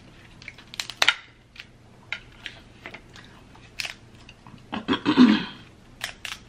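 Snow crab legs cracked and snapped apart by hand: sharp snaps of the shell, a strong one about a second in, and a longer, louder crunching stretch about five seconds in. The legs were reheated in the oven, which may have made the shells extra crispy.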